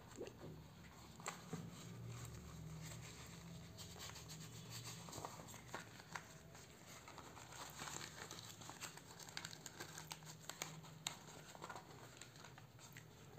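Faint rustling and crinkling of a soft black microphone pouch being handled and opened, with many small scattered clicks, over a low steady hum.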